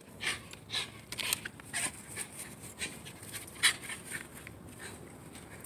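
A Shiba Inu playing with a toy: a string of short, irregular scratchy rustles, the loudest about three and a half seconds in.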